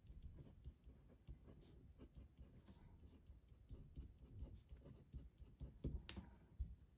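Faint scratching of a pen on paper as capital letters are printed, in short strokes one after another, with one sharper tick near the end.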